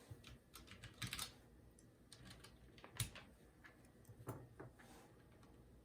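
Irregular clacks of keys on a Ducky One 2 Mini mechanical keyboard being pressed down, with rubber keycaps on the switches. The loudest come about a second in and about three seconds in.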